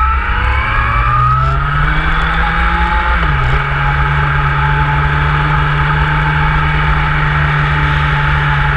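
Motorcycle engine running under way, rising in pitch as it accelerates, with a brief dip about three seconds in like a gear change, then holding a steady pitch.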